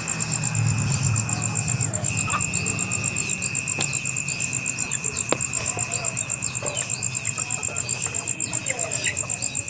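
Insects trilling steadily: a fast, evenly pulsing high-pitched trill over a continuous lower whine that breaks off briefly about two seconds in, with faint scattered bird chirps.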